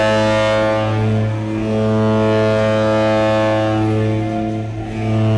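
Ice hockey arena horn sounding the end of the game: one long, low, steady blast with two slight dips in level.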